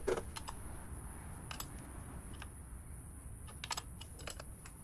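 Irregular light metallic clicks and taps of a 17 mm wrench on the fuel line fittings of a BMW B58 engine as the line is fitted and tightened.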